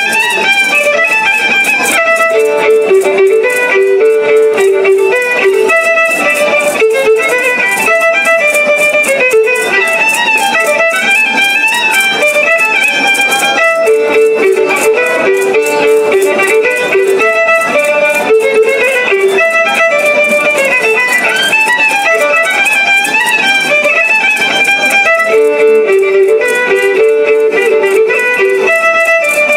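Pallitas dance music: a violin melody over a plucked string accompaniment, the same short tune coming round again and again.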